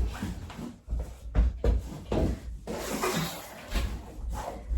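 Flat-pack furniture panels and their cardboard packaging being handled and set down: a series of irregular knocks and low thuds, with some rustling about halfway through.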